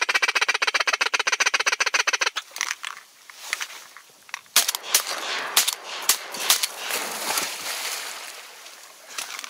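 A fast, even rattle of clicks for about two seconds, then a hunting dog splashing through reeds and shallow water as it goes out to retrieve a shot duck, with sharp splashes and rustles.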